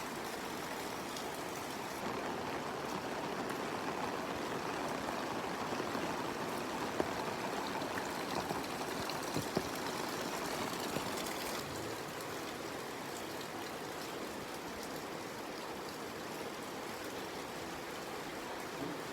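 Steady rainfall with rushing water, an even hiss, a little louder in the first half, with a few sharper drops ticking between about 7 and 11 seconds in.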